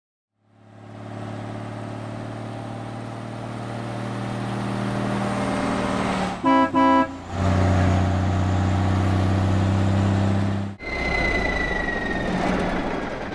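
Cartoon truck sound effects: a steady truck engine drone, two short horn toots about six and a half seconds in, and then the engine running louder. After a sudden break near the end, a slowly falling whine over a hiss.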